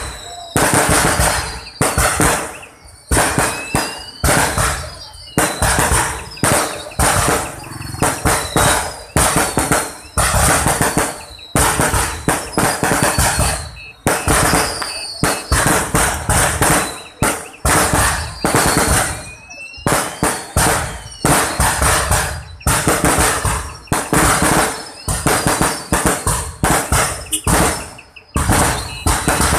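Aerial fireworks display going off in a rapid, continuous barrage of bangs, several a second. Whistles sliding in pitch run through it, mostly falling and a few rising.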